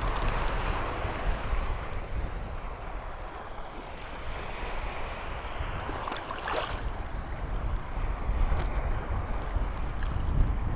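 Strong wind buffeting the microphone over waves washing across a shallow reef, with a brief louder rush of water about six seconds in.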